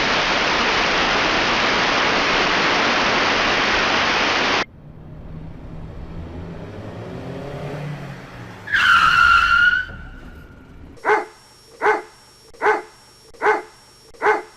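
A string of separate sound effects: a loud, steady rush of noise that cuts off abruptly after about four and a half seconds, then a quieter pitched sound slowly rising, a short high squeal, and five evenly spaced beeps near the end.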